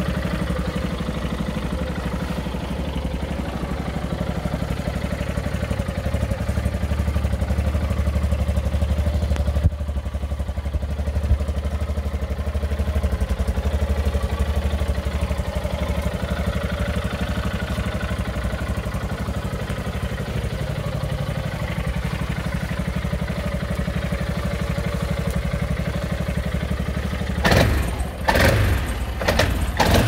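KVN Yak 500 quad's engine idling steadily. Near the end, a run of irregular loud bursts of noise breaks in over the idle.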